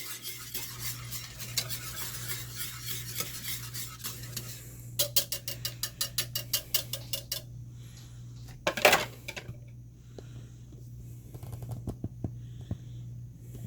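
A utensil stirring tomato and vodka sauce in a crock pot, scraping around the pot for several seconds, then a quick run of rapid clinks against the pot about five seconds in. A single louder knock follows near nine seconds, then a few light taps.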